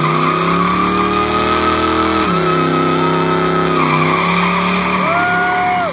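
Second-generation Chevrolet Camaro doing a burnout: the engine is held at high revs while the rear tyres spin and squeal. The revs dip a little about two seconds in and pick back up near four seconds.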